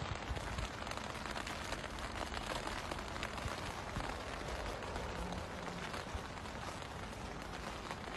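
Steady outdoor background noise: an even, quiet hiss with faint small crackles.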